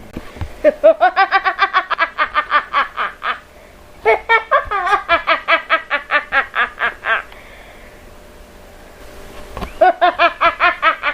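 A woman's crazed, evil villain laugh: three bouts of rapid, high-pitched "ha-ha-ha" laughing, each two to three seconds long, with short breaths between them.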